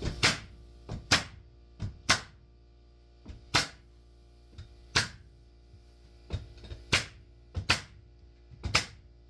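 Sharp thuds and knocks on a wooden subfloor, about one a second and sometimes in quick pairs, over steady background music.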